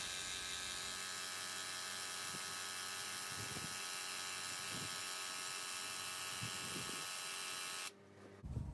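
Graco TrueCoat 360 VSP handheld airless paint sprayer's electric pump running steadily in the prime position, pumping warm rinse water to flush the sprayer. The pump cuts off suddenly about eight seconds in, followed by a short thump.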